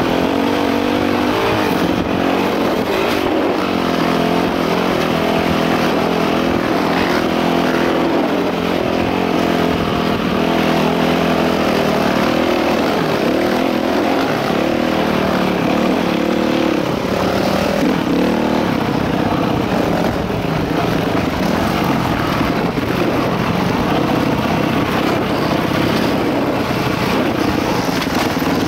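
Dirt bike engine running hard along a trail, its revs rising and falling again and again with the throttle and gear changes.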